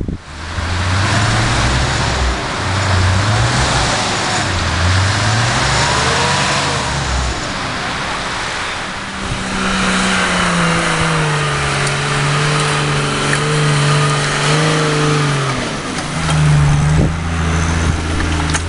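Off-road 4x4 engines revving under load as they climb: in the first half the revs rise and fall over and over, and from about halfway they are held higher and steadier. The sound changes abruptly about halfway and again near the end, as one vehicle gives way to another.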